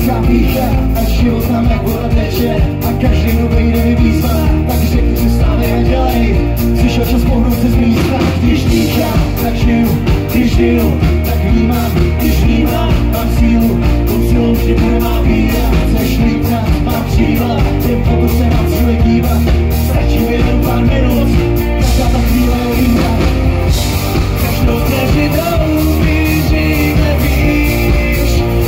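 Live rock band playing a song loudly, with drums keeping a steady beat.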